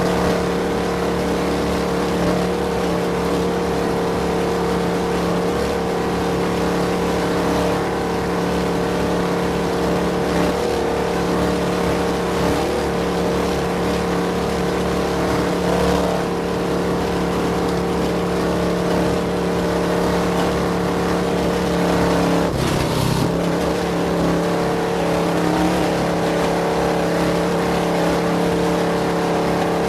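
Off-road race vehicle's engine running at a steady speed under way, a continuous drone with a brief break and change in pitch about three-quarters of the way through.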